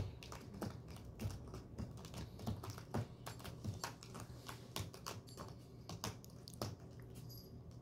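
A cat clawing at a corrugated cardboard scratcher: a faint, quick, irregular run of scratches and clicks.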